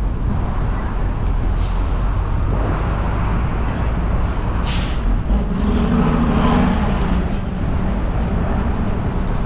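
Wind buffeting the microphone on the move, mixed with street traffic noise. A short hiss comes about five seconds in, and a vehicle engine drones past about a second later.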